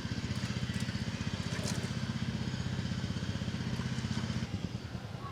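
A small engine running steadily with a fast, even firing beat, which drops in level about four and a half seconds in.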